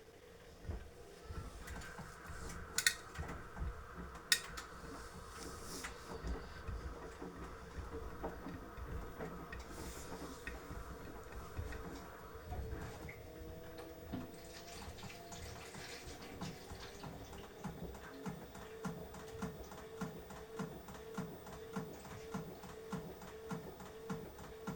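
Beko washing machine partway through a 30° wash: water swishing in the turning drum over a steady motor hum, with two sharp clicks a few seconds in. A hiss of running water stops about halfway. In the last quarter the drum settles into a regular rhythmic swish, a little more than one a second.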